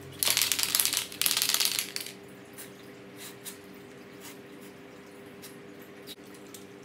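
Aerosol spray can with a straw nozzle giving two hissing bursts of about a second each, followed by a few faint small clicks.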